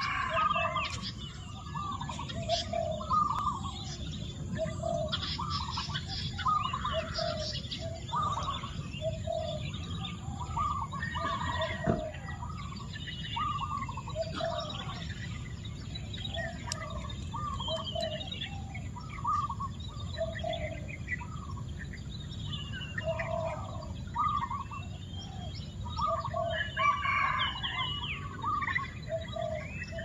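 A chorus of birds calling: short calls repeated about once a second, mixed with higher chirps, over a steady low rumble.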